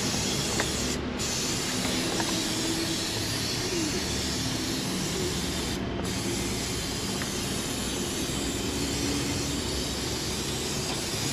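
Aerosol can of brake parts cleaner spraying in long continuous hissing bursts onto a semi truck's engine underside, with two brief breaks, about a second in and near the middle.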